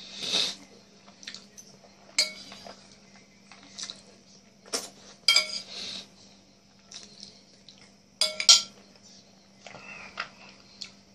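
Metal fork clinking and scraping against a plate as food is scooped up, a string of sharp ringing clinks at uneven intervals, the loudest pair about eight seconds in.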